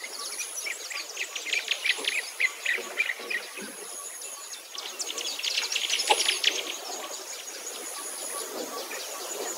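Birds chirping in quick runs of short high calls, with a thin, high insect trill that starts and stops in stretches.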